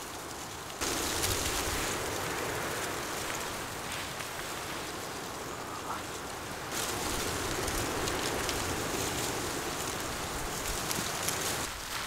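Wind gusting through the trees, a steady rushing hiss that jumps louder about a second in and swells again about halfway through.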